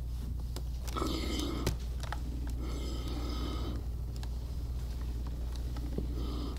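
Quilt block fabric handled and pressed with an electric iron on a wool pressing mat: short rustling noises about a second in and again around three seconds in, with a sharp click just before two seconds, over a steady low hum.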